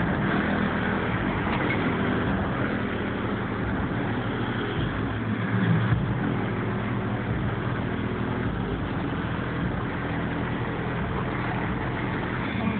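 1972 Chevrolet Caprice's V8 engine idling steadily.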